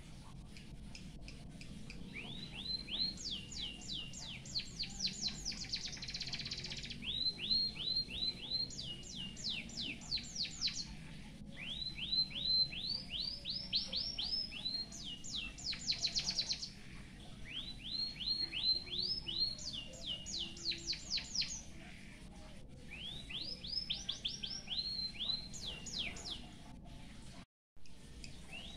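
White-headed munia (emprit haji) singing canary-style song: about six phrases of quick repeated chirping notes, each phrase starting lower and climbing to higher, thinner notes, with short pauses between. A brief dropout comes near the end.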